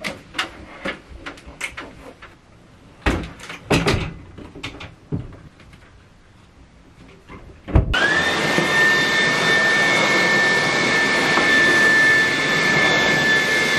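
A few clicks and knocks, two of them louder thumps, as things are handled. About eight seconds in a cordless stick vacuum cleaner switches on: its motor whine rises quickly to a steady high pitch and keeps running.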